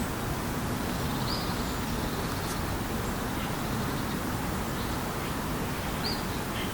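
Steady outdoor background noise by a lake, with a small bird chirping briefly twice, once about a second in and again near the end.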